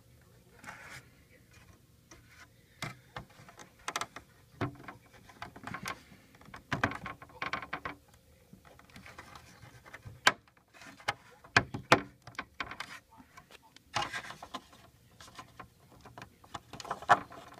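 Plastic cup holder being pushed and worked into a BMW E90 center console by hand: irregular plastic clicks, knocks and rubbing, with a few sharper snaps as its clips seat.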